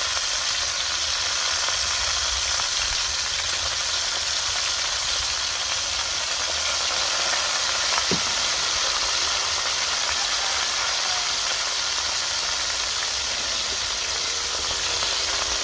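Chicken pieces sizzling steadily in a hot aluminium pot over a charcoal fire, over a low rumble, with one sharp click about eight seconds in.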